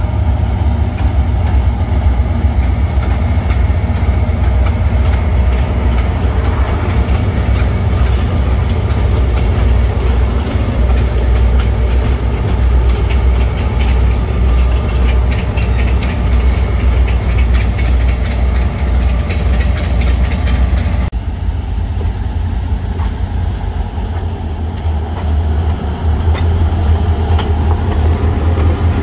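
A train led by EMD GP20 diesel locomotives passing, with a steady, heavy low engine rumble and wheels running on the rails. About three-quarters of the way through the sound changes abruptly to a closer pass, where a thin, high wheel squeal slides slightly lower.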